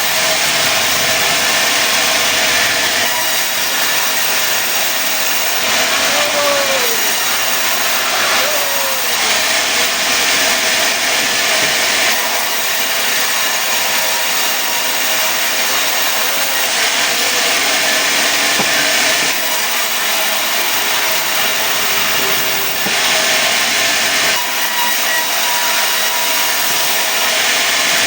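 Sawmill saw cutting mahogany logs into boards: a loud, continuous run of machine noise and high hiss that grows brighter and drops back several times as the cut goes on.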